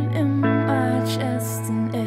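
Slow background music: long held notes over a steady low bass note.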